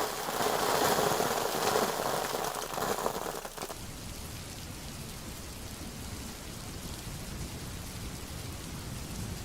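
Rain sound effect: heavy rain falling as a dense, even hiss, which about three and a half seconds in drops suddenly to a quieter, duller steady rain.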